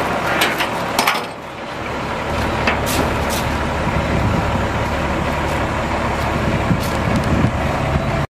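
International DT466 diesel engine of a dump truck idling steadily, with a few sharp clicks and knocks over it. Wind buffets the microphone in the first second or so.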